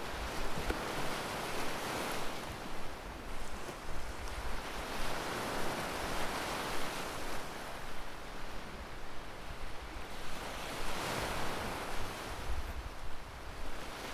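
Sea waves washing onto a sandy shore, a steady rush that swells and eases every few seconds.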